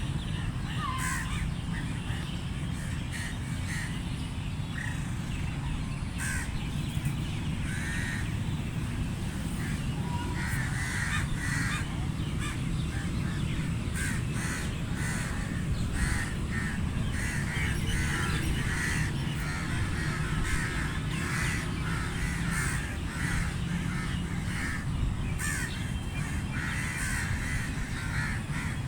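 Several crows cawing repeatedly, their harsh calls overlapping throughout, over a steady low background rumble.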